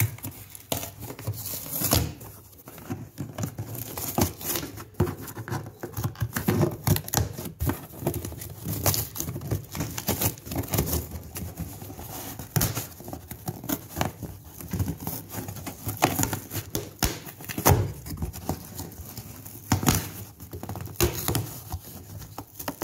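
A cardboard shipping box being worked open by hand: a long run of irregular tearing, crinkling and knocking as the flaps and tape give way.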